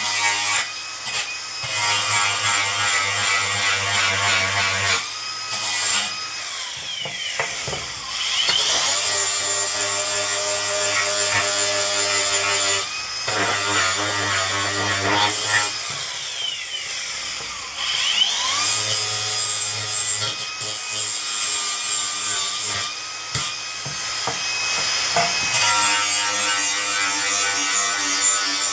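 Electric grinder running against a scrap of metal to clean it, a high whine with a rasping grind. Twice the motor is let off and winds down in a falling whine, then spins back up to speed.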